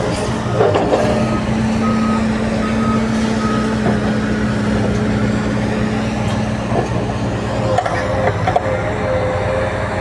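Heavy vehicle engine running steadily, with a few short reversing-alarm beeps about two to three and a half seconds in. A steady higher tone joins the engine near the end.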